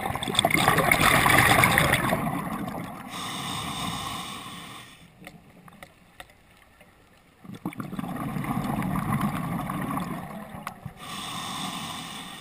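Underwater breathing through a scuba regulator, two full breaths. Each breath is a loud gurgling rush of exhaled bubbles, then a thinner hissing inhale, with a quiet pause between breaths.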